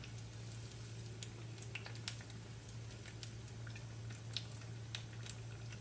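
Batter-coated banana pieces frying in a shallow pan of oil over low heat: a soft sizzle with scattered crackles and pops, over a steady low hum.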